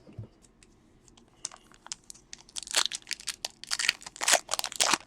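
Baseball cards and their plastic packaging being handled: a run of crinkles and swishes that grows busier and louder in the second half.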